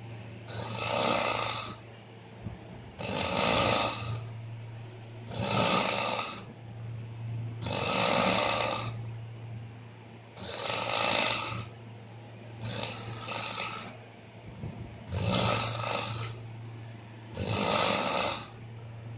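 A sleeping person snoring loudly and regularly, one snore about every two and a half seconds, eight in all, over a steady low hum.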